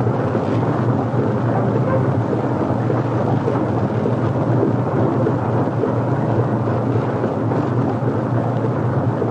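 Steady rumbling, rushing roar of refrigeration machinery running in a cold test chamber chilled to about 70 below zero, with a low hum under it.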